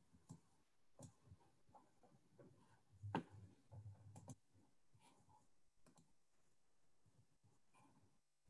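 Near silence with scattered faint clicks and small knocks; the loudest comes about three seconds in, with a short cluster just after four seconds.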